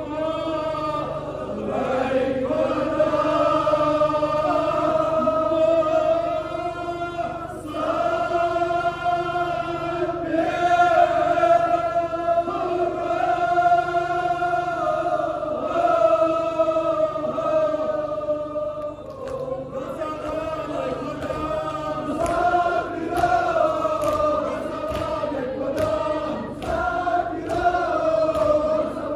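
A large group of men chanting a noha, a mourning lament for Ashura, in unison, with long drawn-out sung lines following a leading reciter. From about twenty seconds in, a steady rhythmic beat runs under the singing.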